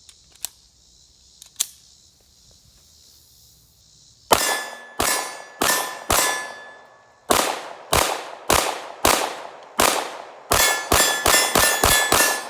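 Two faint clicks, then about fifteen shots from a Palmetto State Armory Dagger 9mm pistol fired in quick strings, faster toward the end. Each shot is followed by the ringing clang of a steel target being hit.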